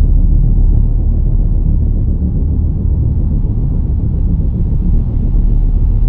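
Loud, deep, steady rumbling drone, the low end of a dark ambient soundtrack.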